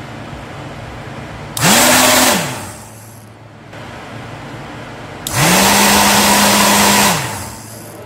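Hair dryer's small blower motor, fitted with a new replacement fan, test-running. Twice it is switched up to high speed: its whine rises quickly, holds, and falls back; the second high-speed run lasts about two seconds, the first under a second.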